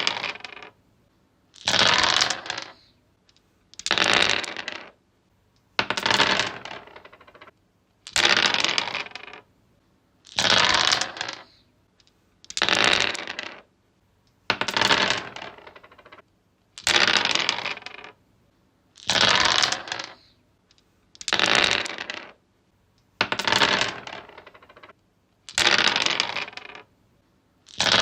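Dice rolled again and again on a wooden surface, each roll a sharp clatter that tumbles and dies away within about a second, one roll about every two seconds.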